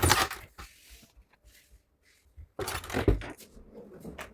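Packing noises: two short bursts of rustling and knocking as packaging is handled, one at the start and one just under three seconds in, with a few small clicks between.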